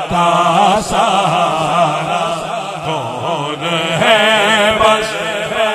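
A man's voice singing a naat in a chant-like style, drawing out long wavering melodic phrases over a steady low drone.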